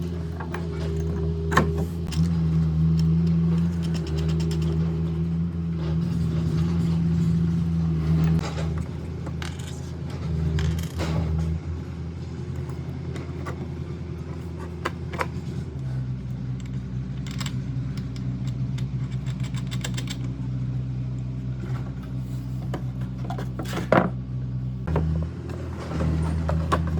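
Steady low machine hum from a running motor or engine, its pitch shifting about two-thirds of the way through, with scattered knocks and clicks over it.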